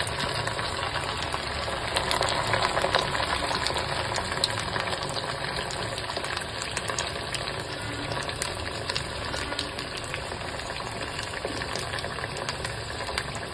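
Sabudana vadas (sago fritters) deep-frying in hot oil in a steel pan: a steady sizzle full of small crackling pops, with a low hum underneath.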